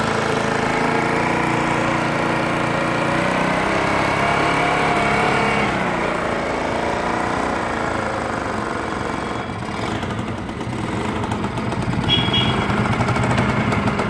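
Old Vespa-style scooter's engine running as the power for a rope hoist lifting building materials. It runs steadily at first, then from about ten seconds in changes to a faster, rougher pulsing beat.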